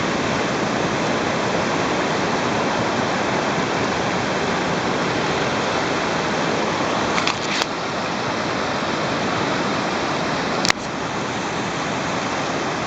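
Sea surf making a steady rush of noise, with two short clicks, one about seven and a half seconds in and one near eleven seconds.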